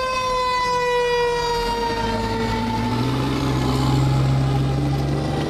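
Fire engine siren winding down, its tone falling slowly in pitch. The truck's engine grows louder about halfway through as the engine passes close by.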